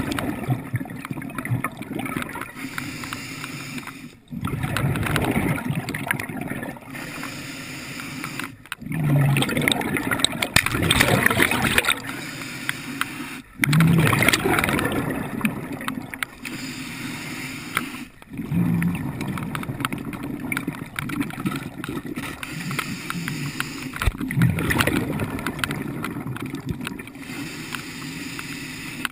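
Underwater water noise: gurgling and rushing that swells and drops away in a repeating cycle, with brief breaks about every four to five seconds.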